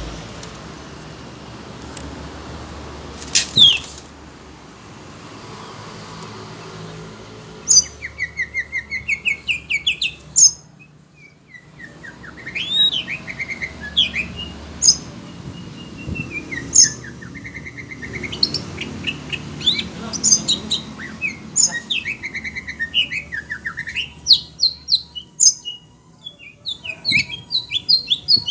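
Oriental magpie-robin singing in rapid strings of sharp chirps and loud whistled phrases, starting about eight seconds in and running in repeated bursts; the bird is worked up by hearing other birds' song.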